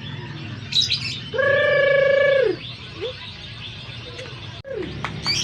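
Lovebird chirping in short high bursts, about a second in and again near the end. Between them a loud, steady pitched call holds for about a second and drops in pitch as it ends.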